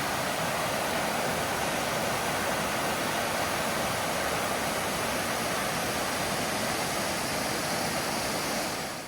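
Waterfall rushing: a loud, steady roar of falling water that cuts off suddenly near the end.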